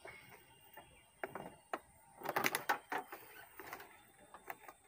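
Clicks and rattles of a mains plug and its cable being handled, with a cluster of sharp clicks about halfway through.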